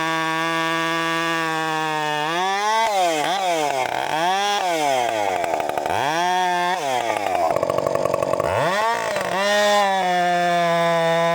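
Husqvarna 562 XP two-stroke chainsaw running at a steady speed, then from about two seconds in its engine speed drops and climbs back several times, sagging low and stuttering near the end, before it settles back to a steady pitch.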